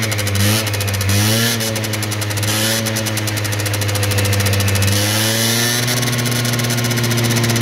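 Freshly rebuilt Gilera Runner two-stroke scooter engine running steadily at idle.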